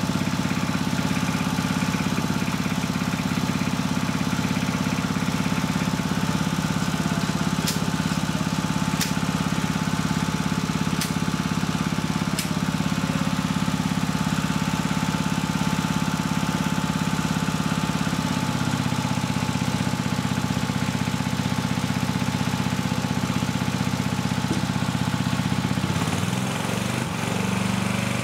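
Motor-driven pump running steadily, pushing liquid through a Liquid Controls M-7-1 positive-displacement flow meter and a master meter in a calibration run. Its hum drops slightly in pitch about two-thirds of the way through and shifts again near the end, with a few faint clicks in the first half.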